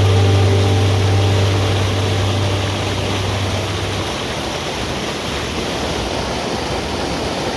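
Mountain stream rushing, a steady even noise of flowing water. A held low music note fades out about four seconds in.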